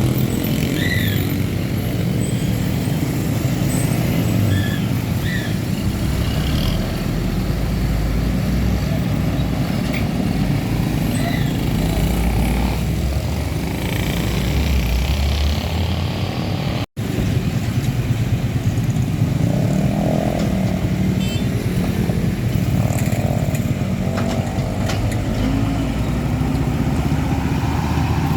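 Roadside traffic: engines of passing trucks and motorcycles running as a steady low rumble. A brief dropout cuts the sound about two-thirds of the way in.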